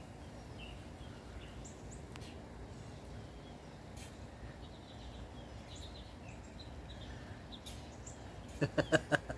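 Faint outdoor background with small birds chirping now and then; near the end, a person breaks into a short burst of quick, rhythmic laughter.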